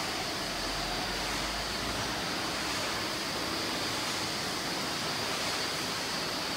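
Steady rushing noise of industrial machinery running in a factory hall, with a faint steady high whine.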